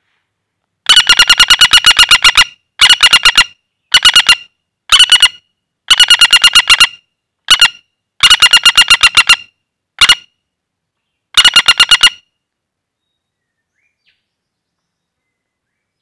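Common flameback woodpecker calling in fast rattling trills of about eight sharp notes a second, in nine bursts of varying length. The calls stop about twelve seconds in.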